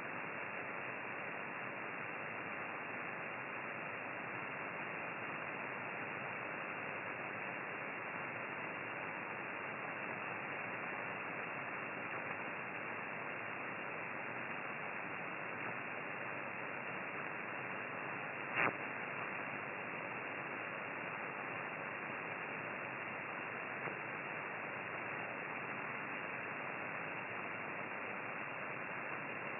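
Steady hiss from an amateur radio receiver on the 50 MHz band, cut off above about 3 kHz by the receiver's audio filter, with one sharp click about two-thirds of the way through. The hiss is the receiver's raised noise floor, the noise problem the operator is chasing.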